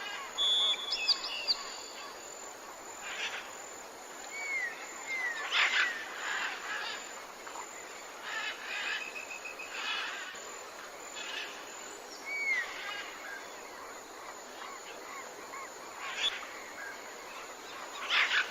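Jungle ambience: assorted bird calls, including short rising whistles and a fast trill, over a steady background hiss, with a few louder brief calls scattered through.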